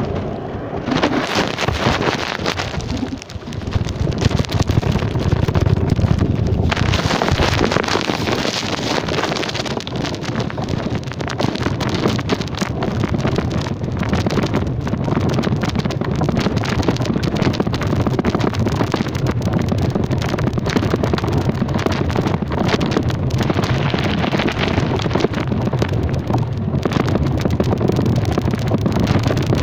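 Wind rushing over the microphone while riding along, over the steady low rumble of a moving vehicle.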